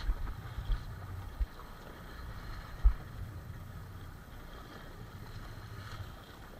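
Wind buffeting the microphone on a drifting fishing boat, with water sloshing against the hull. Several short low thumps come in the first three seconds, the loudest about three seconds in.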